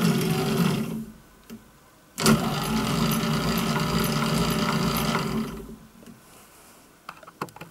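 An old Volvo windscreen-wiper DC motor driving a small lathe's lead screw and carriage, running with a steady hum. It cuts off about a second in, runs again from about two seconds in, and stops again after about five and a half seconds, the carriage halted by its adjustable limit switches. A few light clicks near the end.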